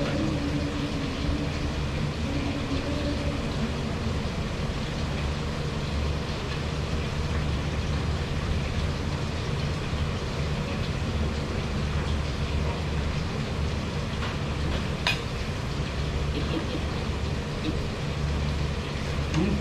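Steady low mechanical hum that holds unchanged throughout, with one sharp click about fifteen seconds in.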